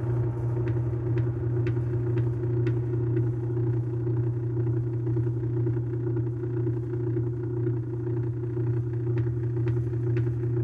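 Low, steady humming drone from the strings of a grand piano played from inside, with faint, scattered clicks now and then.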